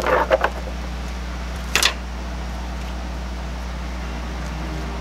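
Steady low hum under brief handling noises: a few rustles and clicks at the start and one short, sharp rustle about two seconds in, from a cardboard box of new engine parts being lifted and moved.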